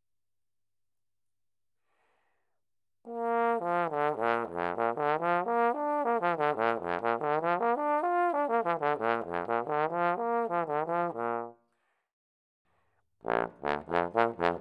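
Trombone played solo. After a few seconds of silence comes a long unbroken run of quick slurred notes sweeping down and back up the range several times. After a short pause, a string of short detached notes follows near the end.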